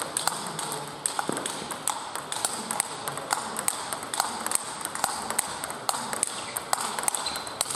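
Table-tennis ball striking rubber bats and bouncing on the table in a fast practice rally: sharp clicks, several a second, in a steady rhythm.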